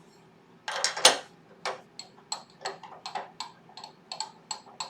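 A short metal rattle, then a run of sharp, ringing metallic clicks about three to four a second: a drill bit being fitted into a drill chuck and the chuck tightened.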